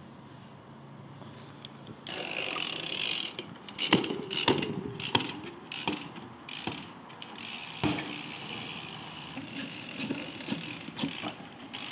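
Ghost SL AMR full-suspension mountain bike being ridden: the rear hub's freewheel ratchet buzzes as it coasts, with tyre noise starting about two seconds in. A series of sharp knocks and clatters from the bike follows.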